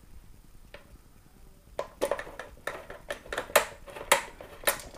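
Small metallic clicks and clinks as screws are fitted into the headlight fairing mount with a socket handle. An irregular run of sharp clicks starts a little under two seconds in.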